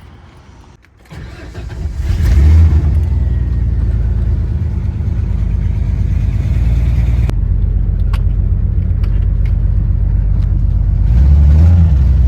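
Truck engine comes in about a second in and then runs steadily with a deep, low rumble, swelling a little near the end.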